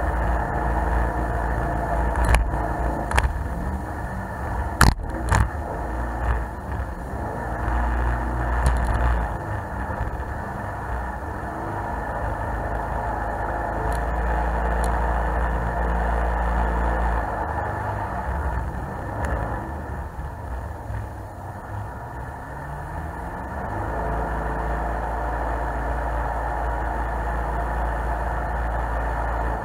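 Jet boat engine running under way, with steady water and wind rush; the engine pitch rises and falls as the throttle changes. A few sharp knocks stand out in the first several seconds.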